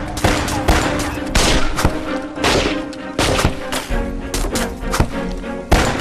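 Battle gunfire: rifle shots in an irregular volley, two or three a second, over dramatic background music with held tones.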